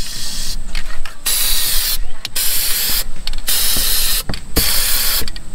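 Aerosol spray-paint cans hissing in a series of bursts, each under a second long, with short breaks between them, as paint is sprayed onto water.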